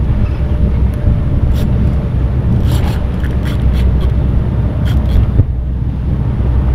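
Small boat's outboard motor running steadily in gear, mixed with wind buffeting the microphone, with a few brief knocks scattered through.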